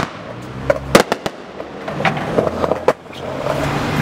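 Aerial fireworks exploding in the sky: a sharp bang at the start, a quick cluster of pops about a second in, and another bang near three seconds.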